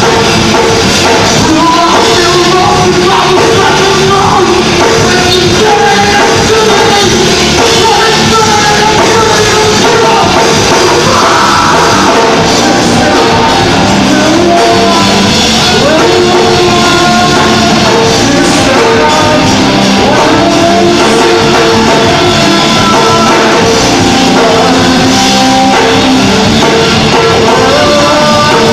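Rock band playing live, loud and steady, with sung and shouted vocals over the instruments.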